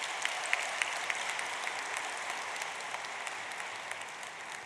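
Audience applause: a dense, even spread of clapping that eases off gradually toward the end.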